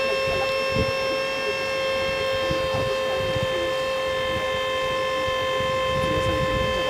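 Hydraulic drive of a truck-mounted aerial work platform running with a steady, high whine while the basket is raised.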